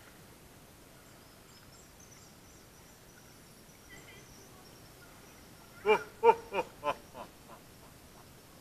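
A person's voice: about six seconds in, a run of six short pitched calls about a third of a second apart, each fainter than the last, in a cave. Before that, faint high chirping.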